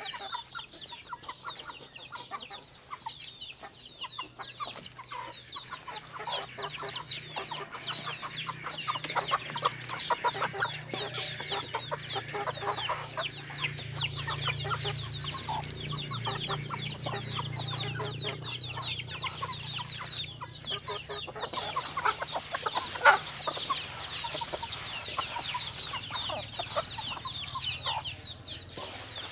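A flock of chickens clucking and calling, many short high calls overlapping throughout, with one sharp click late on.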